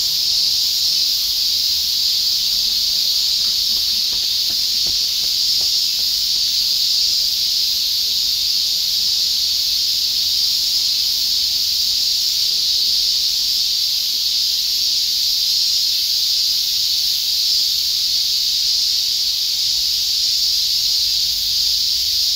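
Cicadas droning in chorus: a continuous high-pitched buzzing hiss that holds steady without pauses.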